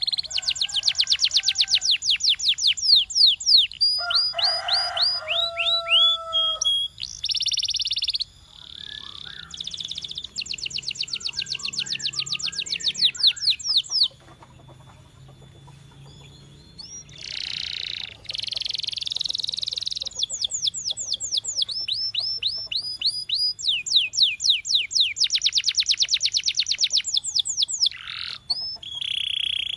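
Canary singing: fast trills of rapidly repeated high notes alternating with short buzzy rolls, with a pause of a few seconds near the middle.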